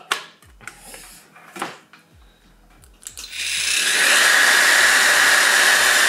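Motor of a 60-volt electric chainsaw, after a few faint clicks, spinning up about three seconds in and then running steadily at full speed with a loud rushing whir, its fan moving a lot of air.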